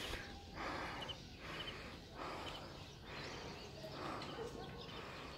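A person breathing heavily close to the microphone after climbing, about one breath a second, with a few faint bird chirps.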